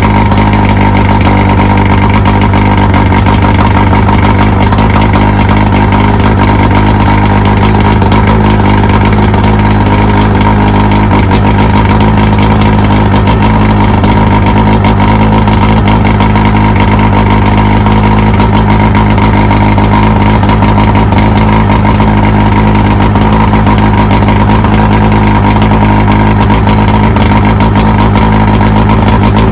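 2001 Mercury 115 hp saltwater-edition outboard motor running steadily and evenly, sounding healthy on all cylinders.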